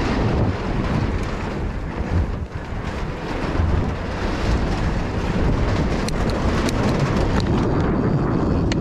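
Wind rushing over the microphone of a mountain bike descending at speed, mixed with the rumble of the tyres rolling over the bridge planks and trail. A few sharp clicks and rattles in the second half.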